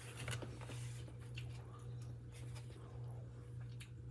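Faint eating sounds: soft clicks and scrapes of utensils in takeout food containers, over a steady low hum.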